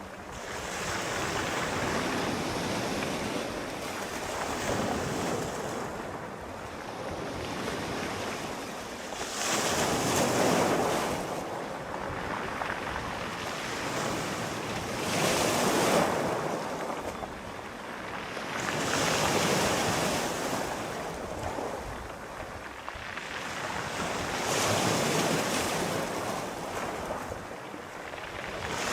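Sea waves breaking and washing onto the shore, one swell after another rising and falling every few seconds, with a soft wind hiss under it.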